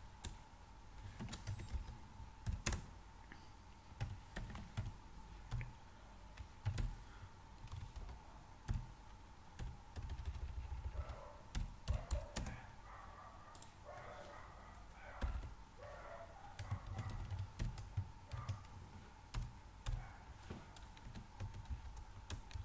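Typing on a computer keyboard: irregular keystroke clicks and thuds, in short bursts with pauses between them.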